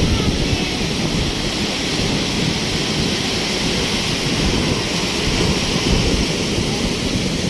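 Big ocean waves breaking in heavy surf: a steady rushing roar with a rumbling, uneven low end.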